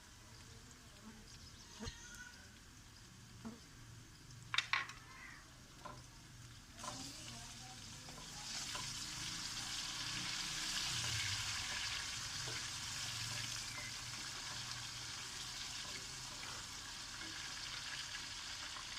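Onions frying in hot ghee in a karahi, with a few sharp utensil clicks at first. About seven seconds in, the sizzling jumps much louder and carries on steadily.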